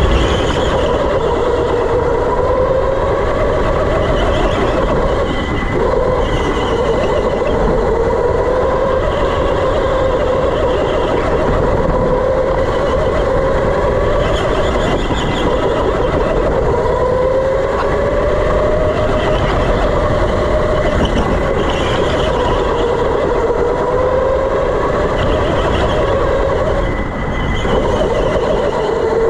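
Electric go-kart's motor whining on the move, its pitch rising and falling again and again as the kart speeds up on the straights and slows for the corners, over steady rolling and tyre noise.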